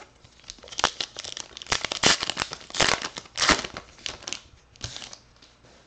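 A baseball card pack wrapper being torn open and crinkled by hand: a run of sharp crackling rips lasting about five seconds.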